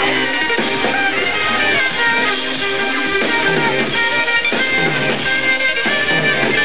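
Live music played loud at a concert, with a melodic line over a steady beat, recorded from the audience with a dull, muffled top end.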